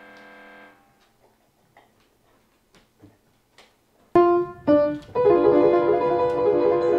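A steady buzzer-like tone, a 'wrong' sound effect, cuts off under a second in. After a near-quiet gap with a few faint ticks, loud piano/keyboard music comes in about four seconds in: two short stabbed chords, then sustained chords.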